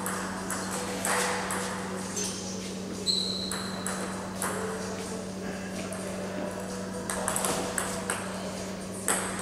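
Table tennis balls clicking off bats and tables in irregular strokes, with a quick run of rally hits about seven seconds in, over a steady low hum.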